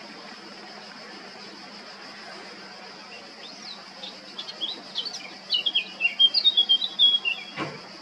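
Male Eurasian blackcap singing: a warble of quick, varied notes that starts quietly about three and a half seconds in and grows louder, over a steady high hiss. A single knock near the end.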